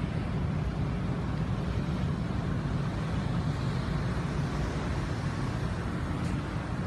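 Steady low rumble on the deck of a bulk cargo ship, mixed with wind noise on the microphone.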